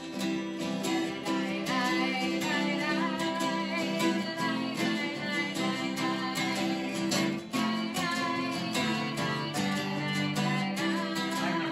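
Two acoustic guitars strummed together, with a voice singing along at times without clear words.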